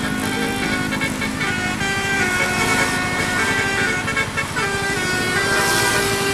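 Bus "basuri" telolet horn, a set of musical air horns, playing a melody in several notes at once that step from one pitch to the next. An engine rumbles underneath.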